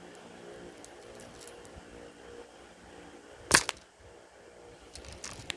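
A sharp knock on the phone about three and a half seconds in, with a smaller one near the end, over a faint steady hum: handling noise as the cat's face comes right up to the lens.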